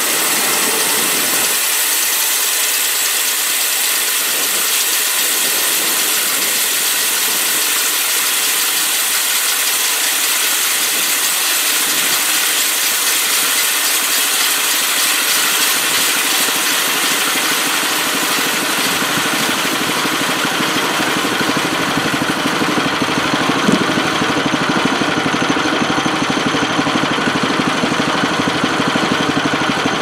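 Portable bandsaw mill running steadily, its band blade sawing through a log. The lower part of the sound fills out a little past halfway, around the time the cut ends, and the mill keeps running.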